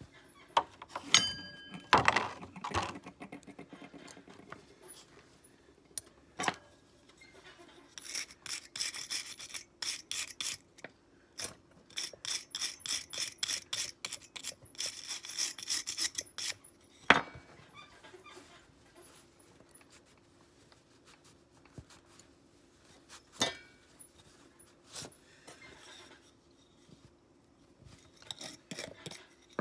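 Hand abrasive work on the parts of an old folding knife: a few sharp clicks and a metal knock with a brief ring, then a long run of rubbing strokes, about two to three a second, and a few scattered knocks as the work pauses.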